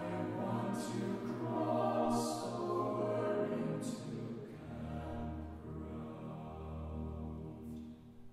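Mixed-voice chamber choir singing a spiritual unaccompanied in slow, sustained chords, with crisp hissed 's' consonants. About halfway through a deep bass note comes in under the chord and holds until the sound dies away at the end.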